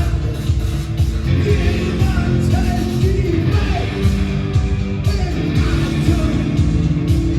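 A rock band playing loud live music, with a driving beat carried by heavy, evenly spaced low drum and bass hits under a thick wash of guitars.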